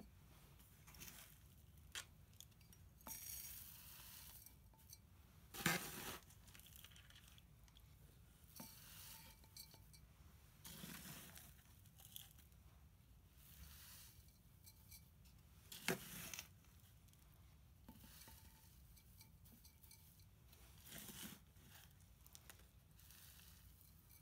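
Gritty, granular potting mix being scooped from a foil tray and poured into a terracotta pot: intermittent gravelly pouring and rustling with a few light clinks. The loudest pours come about six seconds in and again about sixteen seconds in.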